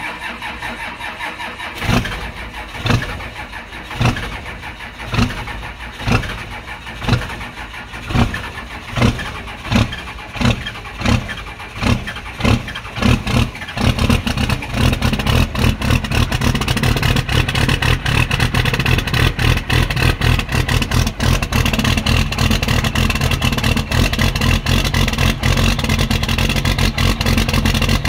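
Cold start of a 12-valve Cummins 5.9 inline-six diesel through a 5-inch straight-pipe exhaust. The starter cranks while the engine fires in single loud pops, about one a second at first and then coming faster. About halfway through it catches and settles into a steady, loud run.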